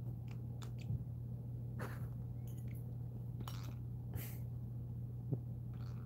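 A cockatoo beaking and biting at a metal spoon of nut butter: a scatter of short scratchy, clicking noises with a couple of light knocks, over a steady low hum.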